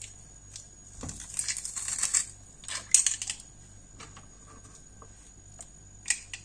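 Metal garlic press squeezing garlic cloves: the crackle of garlic being crushed through the press, with sharp metallic clicks of its handles and hopper, the loudest about three seconds in.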